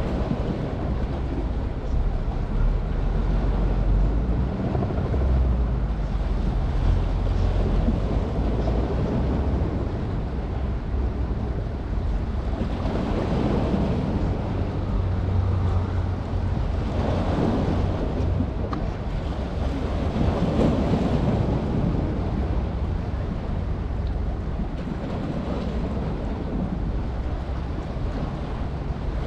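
Wind buffeting the microphone over the wash of sea waves, the surf noise swelling up a few times.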